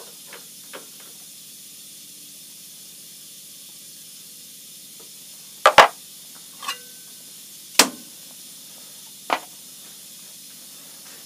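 Sharp metal clanks and knocks of tooling and a wrench being handled at a mill-drill spindle while the cutter is changed to a fly cutter. The loudest is a quick double clank about halfway through, followed by single knocks roughly one, two and three and a half seconds later, over a steady low hiss.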